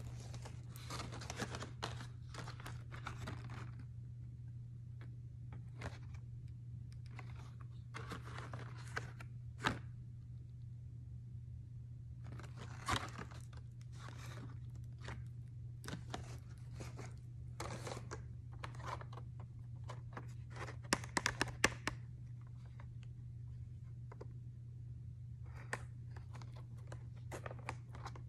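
Plastic retail packaging crinkling and rustling in the hands, in short irregular bursts with a few sharp clicks and taps, over a steady low hum.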